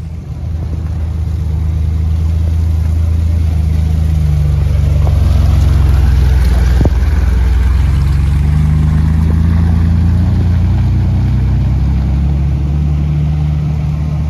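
Off-road vehicle's engine running loud and close, its pitch rising and falling as it is revved. It swells to a peak about halfway through and then eases off, with a single sharp click near the peak.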